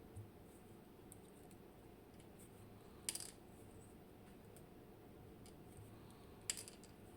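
Two sharp metallic clicks, a few seconds apart, with fainter ticks between them: small pins from a disassembled lock cylinder being taken out and set down on a hard surface.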